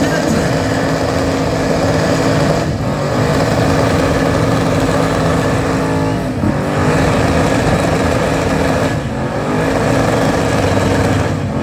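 Car engine held at high revs during a burnout, its tires spinning on the pavement. The revs dip briefly and climb back up about three times.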